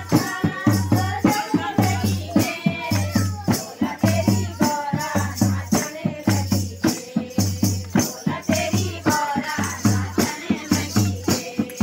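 A group of women singing a Garhwali devotional kirtan, with hand clapping and jingling rattle percussion keeping a steady beat.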